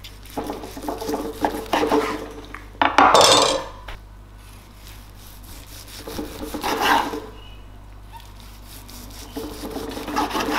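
Knife slicing through a smoked turkey breast on a wooden cutting board: repeated sawing strokes, the blade rubbing through the crust and meat and touching the board. There is one louder stroke about three seconds in and another about seven seconds in.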